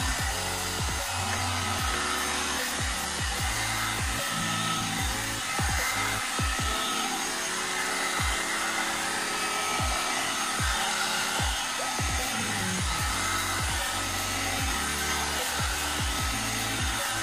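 Hot air brush (one-step dryer brush) running steadily, an even rush of blown air with a faint steady whine, under background music with a plucked bass line.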